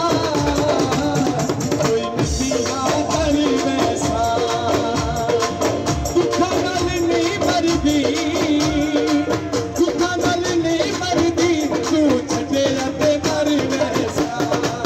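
Folk song played loud over a sound system: a singer's wavering melody over a steady drum beat and rattling percussion.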